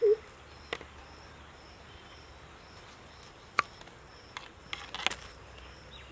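Knife cutting a lemon on a wooden block: a few light taps and one sharp knock of the blade on the wood about three and a half seconds in, over steady insect chirping. A short low call is heard at the very start.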